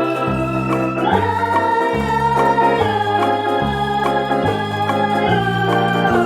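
Background music of sustained electronic keyboard chords in an organ-like sound, over a bass line that steps to a new note a little faster than once a second.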